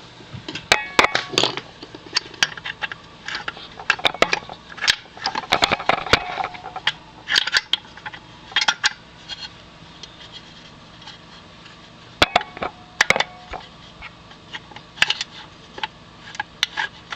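Irregular metallic clinks and knocks of steel gearbox parts being handled as a shift fork is worked into place in a 1951 Bentley transmission. A few of the knocks ring briefly.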